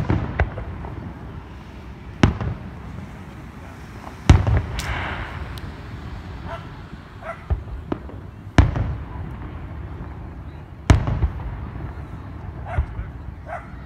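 Fireworks display: five loud booms of bursting shells, about two seconds apart with a longer gap in the middle, plus smaller pops. A brief fizzing crackle follows the burst about four seconds in, all over a steady low rumble.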